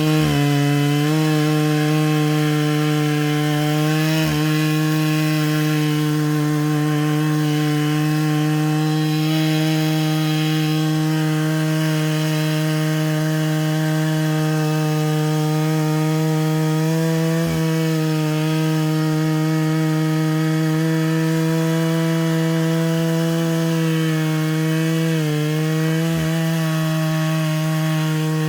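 Two-stroke chainsaw running at high, steady revs in an Alaskan chainsaw mill, ripping a slab lengthwise from a Western red cedar log. The engine note holds steady under the cut, dipping briefly about a second in, about four seconds in, and twice more later.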